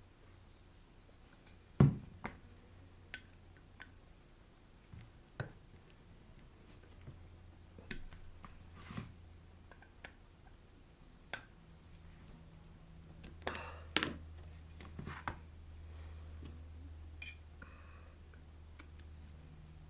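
Scattered clicks and light knocks of a Lambretta's metal electronic-ignition flywheel being handled, turned over and set down, with a thin metal rod working against it. A sharp knock about two seconds in is the loudest, and a quick flurry of clicks comes about two-thirds of the way through, all over a faint steady low hum.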